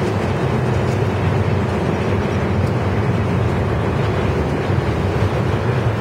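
Long freight train of covered wagons rolling slowly through a rail yard: a steady rumble that does not change over the few seconds.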